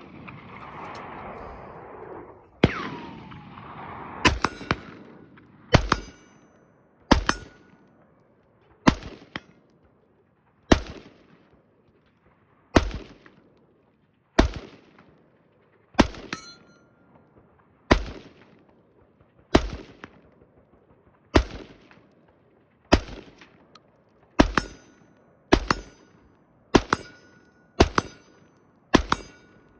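AR-15 rifle fired in steady semi-automatic shots at steel targets, about twenty over half a minute, one every second or two. Several hits are followed by the ringing clang of the steel plate.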